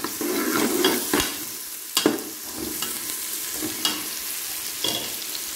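Ginger-garlic paste and fried onions sizzling in hot oil as they are stirred with a slotted metal spatula. The spatula clinks sharply against the metal pot a few times.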